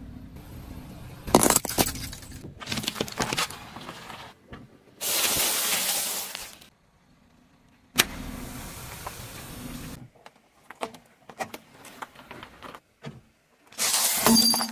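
A run of short shots of a car tyre rolling over and crushing small objects: crunches, cracks and pops, with a steady hiss lasting a second or two about midway and a short near-silent gap after it.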